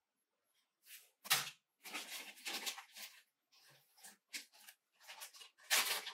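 A knock about a second in as an object is set down on a wooden tabletop, then a clear plastic zip-lock bag rustling and crinkling as it is handled and pulled open near the end.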